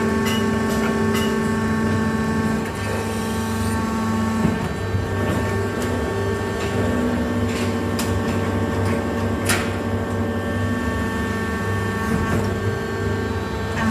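Steady electrical machinery hum made of several fixed tones over a low, pulsing drone, with a few faint sharp ticks; the clearest tick comes about nine and a half seconds in.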